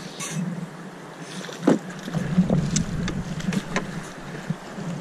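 River current rushing around a rowed drift boat, with a few sharp knocks and clicks scattered through. A low wind rumble on the microphone comes in about two seconds in.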